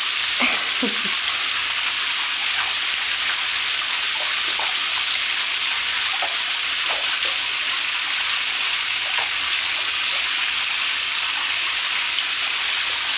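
Water running steadily into a bathtub and splashing on the tub floor: a constant hiss with faint scattered splashes.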